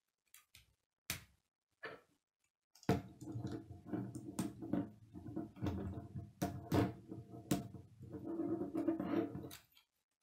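Plastic K'nex rods and connectors clicking as they are handled and snapped together: a few separate clicks, then from about three seconds in a dense run of clattering with sharp snaps, stopping shortly before the end.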